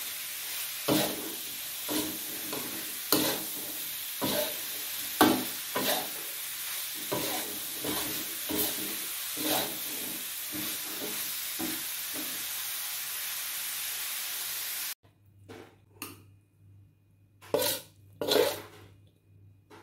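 Spatula scraping and knocking against a wok about once a second while potato and tofu in sambal sauce sizzle. The sizzling stops abruptly about 15 seconds in, followed by a few short, soft knocks.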